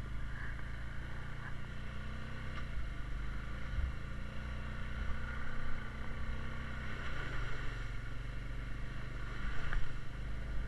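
Honda Rubicon 520 ATV's single-cylinder engine running steadily as it is ridden along a dirt trail.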